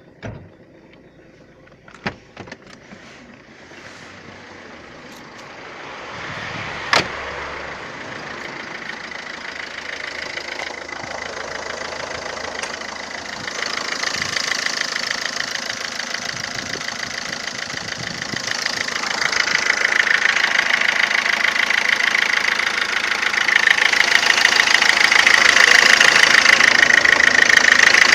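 Ford Fiesta 1.4 TDCi four-cylinder diesel engine running with an abnormal, rapid rattling noise that the owner cannot explain, growing steadily louder. A few sharp clicks come in the first seconds and one about seven seconds in.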